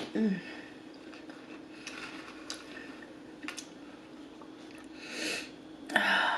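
Quiet eating sounds close to the microphone: scattered mouth clicks and soft chewing, a sniff about five seconds in and a louder noisy rustle or breath near the end, over a steady low hum.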